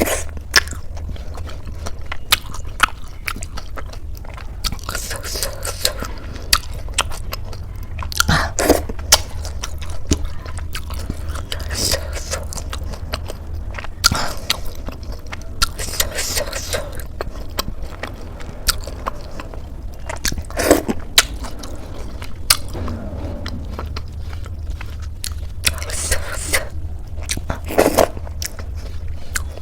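Close-miked biting and chewing of crisp khasta samosa with ghugni: irregular crunches and mouth clicks, over a steady low hum.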